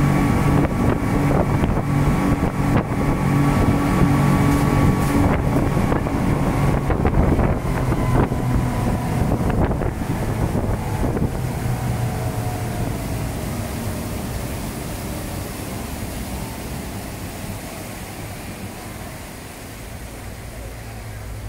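Speedboat engines running steadily, with wind and water noise. The engine sound fades gradually through the second half as the boat slows toward the shore.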